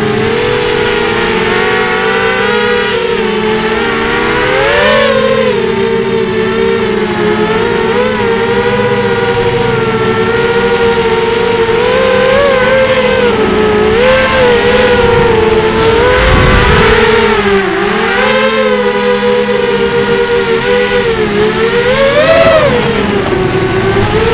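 FPV racing quadcopter's motors and propellers whining, the pitch rising and falling constantly as the throttle changes in flight, with sharper surges about five, twelve, eighteen and twenty-two seconds in. Heard close up, as picked up by the drone's own onboard camera.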